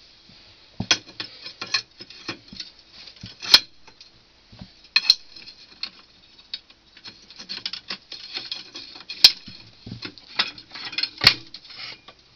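Steel extension rods of a hand post-hole auger clinking and rattling as they are handled at the mouth of a deep bore hole, with about four sharp metal clanks among the lighter clatter.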